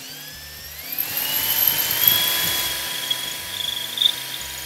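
Power drill with a masonry center drill bit boring into brick, its motor whine rising over the first two seconds and then holding steady.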